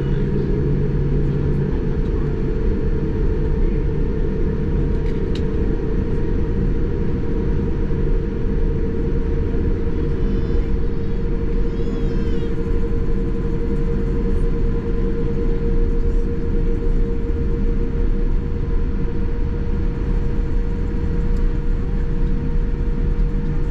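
Steady low rumble with a constant mid-pitched hum from a Boeing 787-9 airliner, heard from inside the cabin. A faint, brief warbling chirp comes about ten to twelve seconds in.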